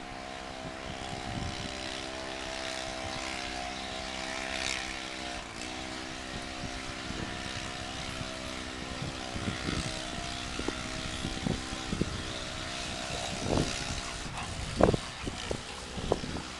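Steady drone of an engine, a stack of even tones that dips briefly in pitch about five and a half seconds in. From about nine seconds on, scattered low thumps sound over it, the loudest near fifteen seconds.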